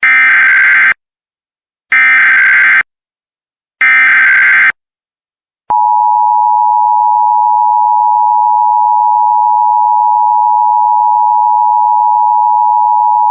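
Three bursts of Emergency Alert System SAME digital data, a harsh screech about a second long, each two seconds apart. About a second later the steady two-tone EAS attention signal starts and holds.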